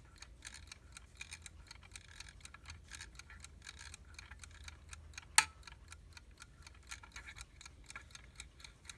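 Mechanical movement of a vintage US Time Waterbury alarm clock running, ticking rapidly and evenly, several ticks a second. One much louder sharp click comes about five and a half seconds in.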